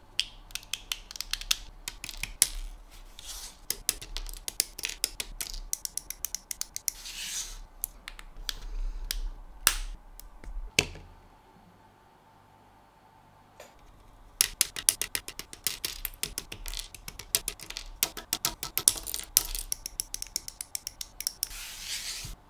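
Hard plastic model-kit parts of a Flame Toys Optimus Prime G1 being handled and snapped together: rapid clicks and ticks, a short stretch of near quiet about halfway through, then more clicking. Near the end there is a brief brushing sweep across the cutting mat.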